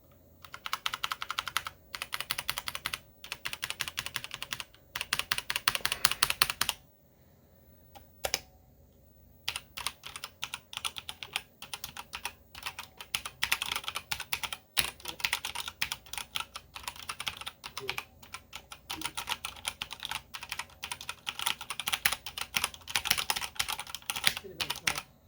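Typing on an EVGA Z10 mechanical keyboard with Cherry MX Brown tactile switches and pudding keycaps: rapid runs of key clacks in bursts, with a pause about seven seconds in before the typing resumes.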